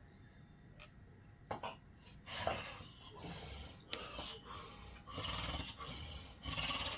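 A sleeping person snoring loudly, a run of noisy snorting breaths one after another starting about two seconds in. This is the snoring of obstructive sleep apnea.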